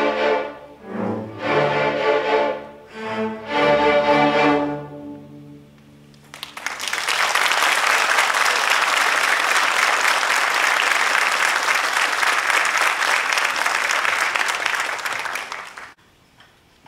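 A string orchestra of violins, violas, cellos and double basses plays short closing chords, the last one held about four to five seconds in before it dies away. Audience applause starts about six and a half seconds in and is cut off suddenly near the end.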